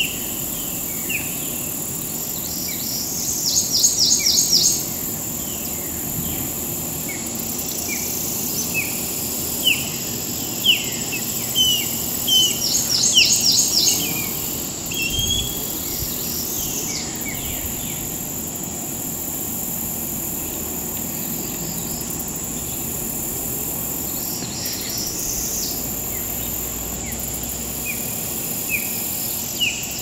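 Outdoor birdsong and insect ambience: a steady high insect drone under many short, high, falling chirps, with a rapid pulsed trill of about a second recurring four times.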